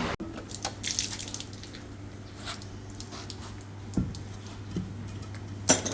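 Scattered light clicks and knocks, over a faint steady low hum, as parts are handled during a big-block engine teardown; one sharp, louder knock comes near the end.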